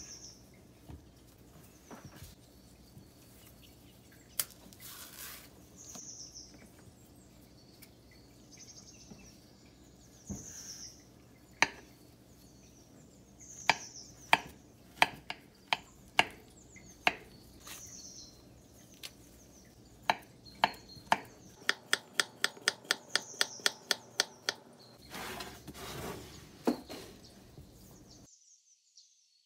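Knife slicing peeled bananas on a wooden cutting board: sharp taps as the blade meets the board, irregular at first, then a fast run of taps in the second half. Small birds chirp at a steady pace behind, from a background bird-sound track.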